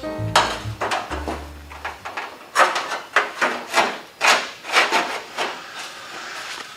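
Hand metalwork on a steel quarter-panel section: a series of short, sharp strokes, irregularly spaced at about two a second, as the panel is worked to fit.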